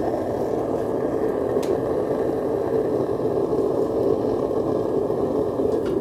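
Homemade foundry furnace running at full heat for an aluminium melt: a steady rushing noise from its burner, even in level, with a faint low hum under it.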